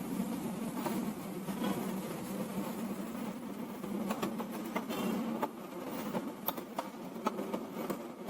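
A steady low buzz, with sharp clicks and taps from about four seconds in as plastic printer side covers are handled and fitted.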